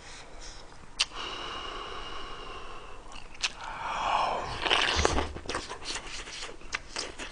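Close-miked eating with chopsticks from a rice bowl of kimchi stew and rice: a couple of sharp clicks of the chopsticks on the bowl, and a drawn-out hissing slurp. About halfway through comes a quick run of wet chewing clicks.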